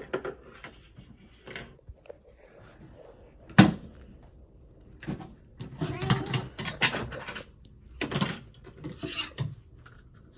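Toy dishes and the little doors of a child's play kitchen being handled: scattered clacks and rattles, with one sharp knock a few seconds in and a busier run of clatter past the middle.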